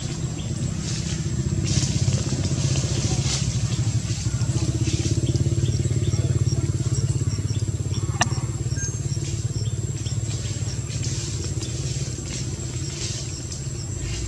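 An engine running steadily with a rapid low pulsing, growing louder about two seconds in and easing off near the end, under a thin steady high whine and a few faint high chirps.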